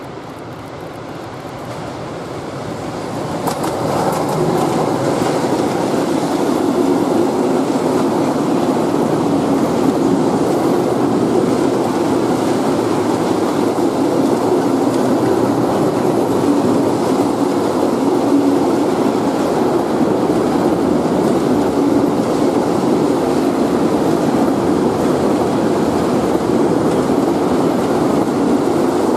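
Freight train of tank wagons hauled by an E186 (Bombardier TRAXX) electric locomotive passing close by. It grows louder over the first four seconds as the locomotive comes past, then the wagons' wheels run on the rails in a steady, even noise.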